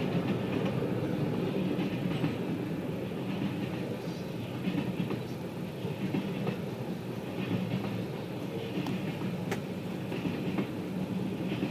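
Railroad cars of a train rolling past on the track: a steady rumble of wheels on rail, with occasional sharp clicks.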